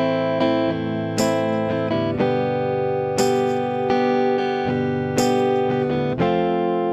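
Guitar strumming chords in a steady rhythm, with an accented strum about every two seconds. The chord changes about two seconds in and again near the end.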